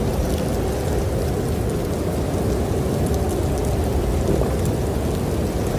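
Steady storm ambience: an even, low rushing noise that runs without breaks or separate events.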